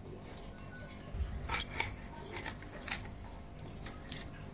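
Background music with a scattering of light clinks and taps.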